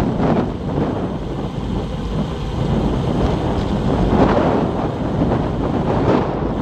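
Wind buffeting the microphone of a bike-mounted camera at about 40 km/h, a loud, gusty low rumble.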